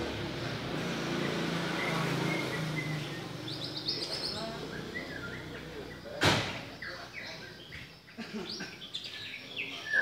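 Caged Oriental magpie-robin singing short whistled phrases and chirps, starting a few seconds in. A motor vehicle runs in the background during the first three seconds, and a single sharp knock comes about six seconds in.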